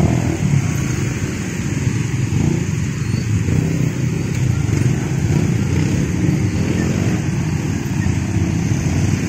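A crowd of motorcycles and scooters running and moving off together, their many engines blending into a steady low mix.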